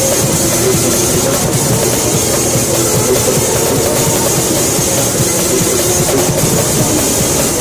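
Cabin noise inside a 1995 Scania N113CRB city bus under way: its diesel engine running steadily under constant road noise, with a continuous irregular rattling of the seats and body panels.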